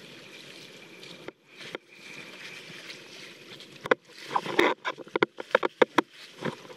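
Water splashing and sloshing around a wing-foil board, a steady rush at first. About four seconds in comes a quick run of sharp splashes and knocks as spray and droplets hit the camera.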